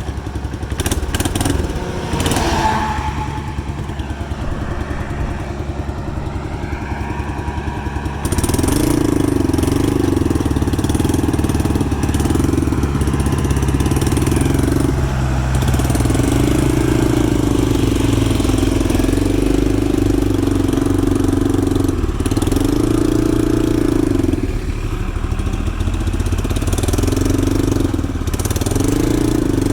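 Case 580E backhoe engine running. About eight seconds in it gets louder and stays up, its hum swelling and dipping every few seconds as the machine works.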